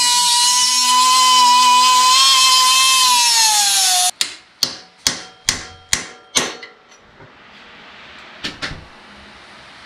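Pneumatic die grinder whining at high speed while grinding out an old bearing race, dropping slightly in pitch before it cuts off about four seconds in. Then six ringing metal hammer blows, about two a second.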